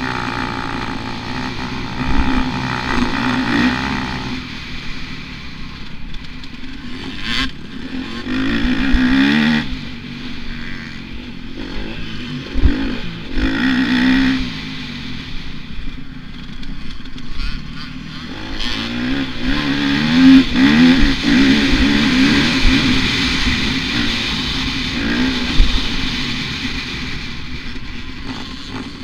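Dirt bike engine heard from on the bike, revving up and dropping off again and again as the throttle opens and shuts through the gears. Scattered sharp knocks and clatter from the rough track run through it.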